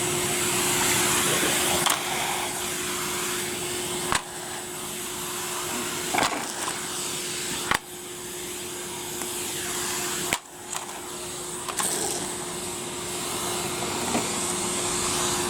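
Numatic Henry canister vacuum cleaner running steadily with a constant hum and airflow hiss, broken by a few sharp clicks and brief dips in the sound.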